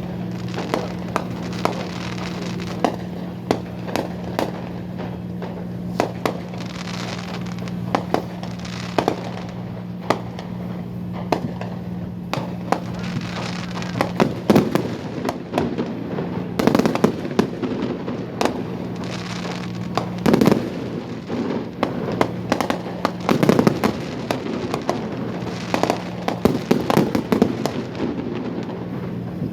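Fireworks display: a steady stream of sharp bangs from bursting shells, turning into dense clusters of rapid pops in the second half. A steady low hum runs underneath.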